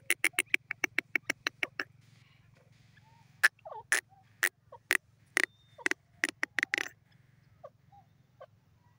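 Grey francolin calling: a fast run of short, sharp notes, about seven a second, for the first couple of seconds, then after a pause a slower, irregular series of louder single calls, some with a lower note, dying away to a few faint notes about seven seconds in.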